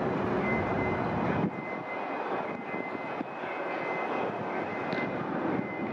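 A steady low rumble of distant engine noise, heavier in the first second and a half, then lighter.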